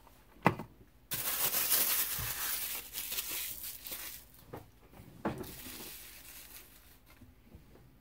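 Plastic packaging crinkling as it is handled, loudest for about three seconds and then dying down. A light tap comes about half a second in and another short knock past the middle.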